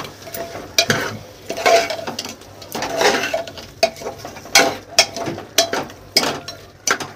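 A steel spoon stirring mutton curry and fried potatoes in a pressure cooker, scraping the pot's sides, with irregular sharp clinks of metal on metal.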